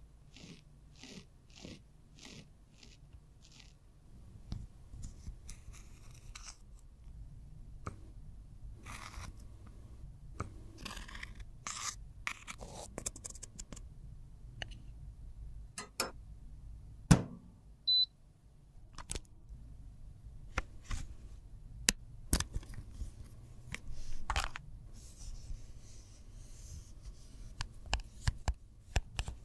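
A metal tool scraping and crumbling pressed powder in a makeup compact, in short strokes about twice a second at first, then scattered scrapes, clicks and taps of plastic compacts and tools being handled.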